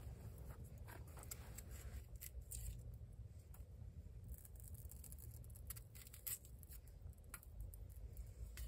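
Faint, irregular clicks and scrapes of a small knife cutting and peeling an onion held in the hand.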